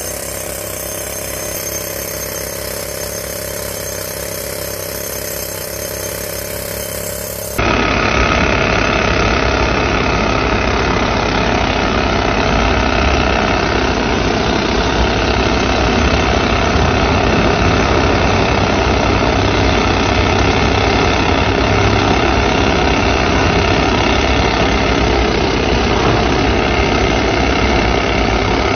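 Hand-held pneumatic rock drills running steadily, drilling into rock with a fast, even hammering. The sound gets louder about eight seconds in and stays steady after that.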